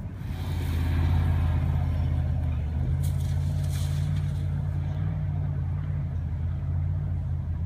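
SUV engine revving hard under load as it climbs a sandy hill. The sound swells within the first second and then holds steady, with a brief rush of noise about three seconds in.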